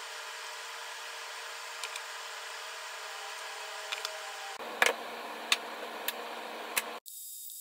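Steady workshop background hiss with a couple of faint ticks. After a sudden change about two-thirds through, four sharp clicks or knocks follow one another. Near the end the sound switches abruptly to a thin high hiss.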